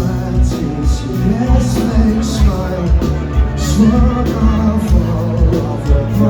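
Live rock band playing at full volume, with kick-drum beats and cymbal crashes under guitars and singing.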